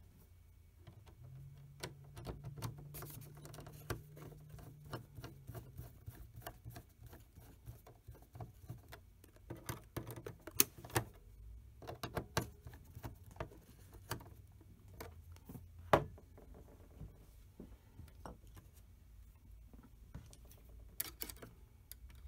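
Phillips screwdriver driving screws back into the metal frame of a Star SP700 receipt printer: irregular small clicks and metal ticks, with two sharper knocks about ten and sixteen seconds in, over a faint steady low hum.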